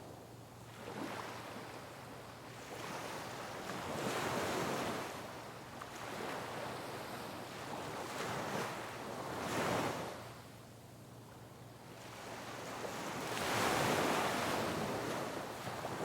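Sea waves crashing on rocks: a rushing surf that swells and falls back about four times, the biggest surge near the end.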